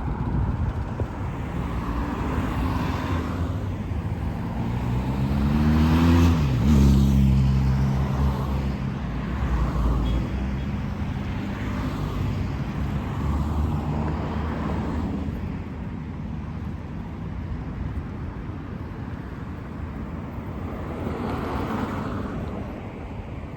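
Street traffic: a motor vehicle's engine passes close about six seconds in, the loudest moment. Its pitch rises as it approaches and drops sharply as it goes by. Other cars pass over a steady road rumble.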